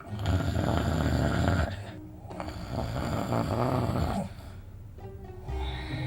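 A person snoring: two long, rough snores of about two seconds each, followed by quieter breathing.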